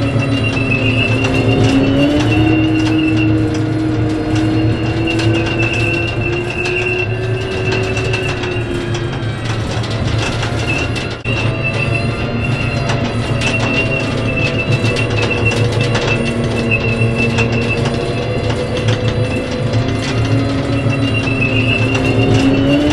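Dubbed-in sound effect of a tank's engine and tracks: a steady mechanical drone with shifting pitch and a high squeal over it. It breaks off for a moment about eleven seconds in, then starts over.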